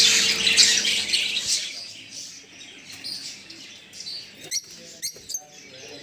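Caged birds chattering and squawking, dense and loud for about the first second and a half. It then thins out to a few short, sharp chirps.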